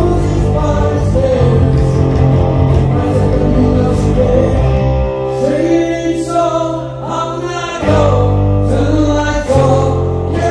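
Live band music: a man singing over guitar and bass guitar. The bass part drops back for a couple of seconds midway while the voice carries on, then comes back in.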